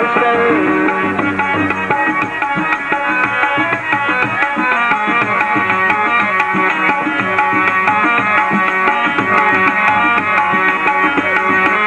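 Music with tabla drumming in quick, continuous strokes under held, steady melody notes.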